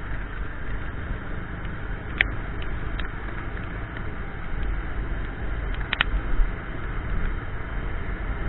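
Steady noise of a motorbike being ridden in the rain, wind and road noise with a low rumble, broken by a few sharp clicks about two, three and six seconds in.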